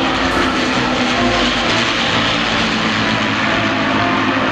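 Avro Lancaster bomber's four Rolls-Royce Merlin piston engines droning steadily as it flies past.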